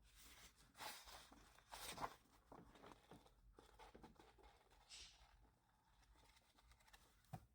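Faint rustling as the pages of a hardback book are turned, with a few soft brushes of paper about one second and two seconds in and a softer one near the five-second mark.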